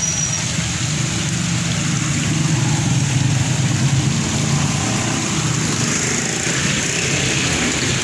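A motor vehicle engine running close by, loudest a few seconds in, over an even rush of water pouring from cascading concrete fountains into their basins.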